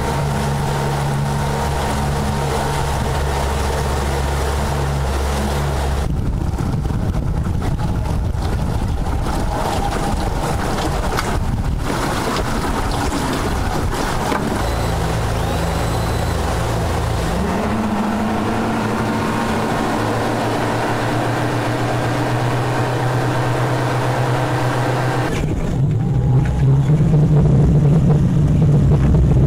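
Outboard engines of an RNLI inshore rigid inflatable lifeboat running at speed over a steady rushing hiss of wind and water. The engine note shifts in pitch several times, with a rise about two-thirds of the way through.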